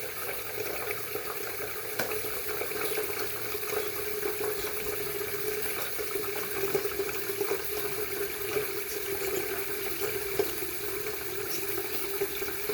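Tap running steadily into a plugged sink, filling it with water.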